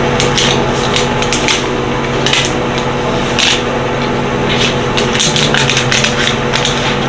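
Foil wrapper of a chocolate bar crinkling in the hands in quick, sharp crackles, bunched at the start, in the middle and thickly near the end, over a steady background of held low tones.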